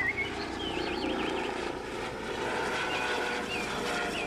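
Helicopter rotor and engine sound, running steadily with an even beat, with birds chirping in the background.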